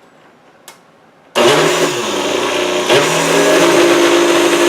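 Countertop blender switched on about a second in and running loudly, churning a thick frozen mix of ice and frozen strawberries, with a brief hitch in the motor about halfway through.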